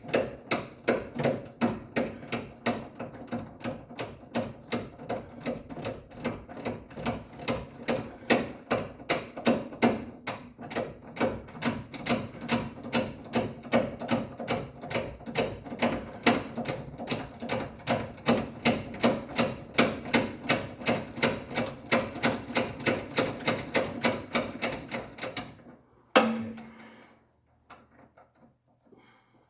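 Hand ratchet wrench clicking in a steady rhythm, about three clicks a second, as a long bolt is wound out. The clicking stops near the end and one louder clunk follows.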